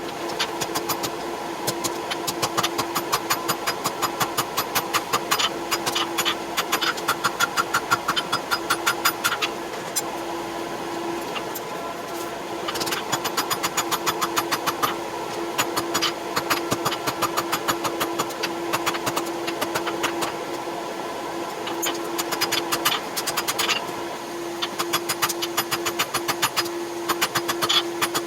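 Sped-up runs of hammer blows on hot steel at the anvil, coming in several quick bursts, over a steady mechanical hum.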